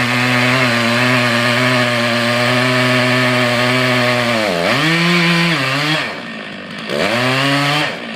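Two-stroke chainsaw running at high revs. Its pitch sags sharply and comes back up twice, near the middle and near the end, and the sound cuts off abruptly.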